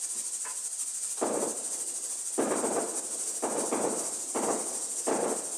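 Whiteboard eraser rubbing across a whiteboard in repeated wiping strokes, about one a second, over a steady high hiss.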